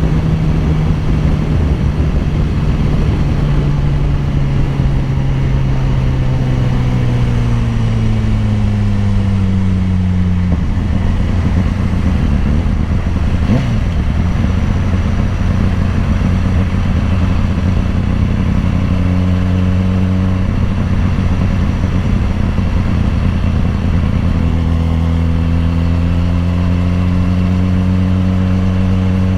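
BMW S1000RR's inline-four engine running steadily under way. Its pitch falls slowly through the first ten seconds, holds level through the middle, and climbs a little again from about twenty-four seconds in.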